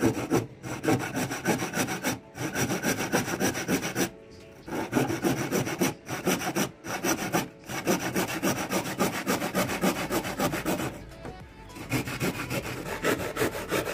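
Hand saw cutting through a block of 2x2 wood in quick back-and-forth strokes, with a few short pauses between runs of strokes.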